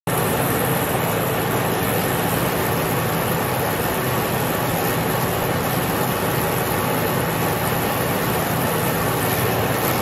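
Sawmill's engine running steadily under load, a dense even mechanical noise with a steady low hum, while the carriage's log-turning arm is worked.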